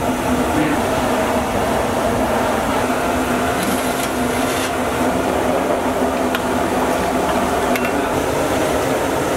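Steady roar of a commercial gas burner under a large steel pot of boiling water. About four seconds in there is a brief scrape as the steel lid is slid off the pot.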